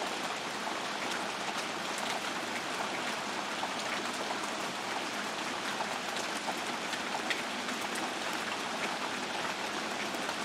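Steady downpour of rain, an even hiss with scattered sharp drop ticks.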